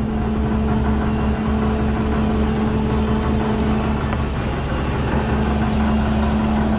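Kitchen equipment running with a steady mechanical hum: a constant low drone with a fixed pitched tone, unchanging throughout.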